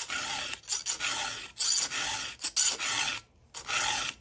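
Round chainsaw file rasping across a chain's cutter tooth in about six steady push strokes, reshaping a tooth that has been damaged by hitting a rock.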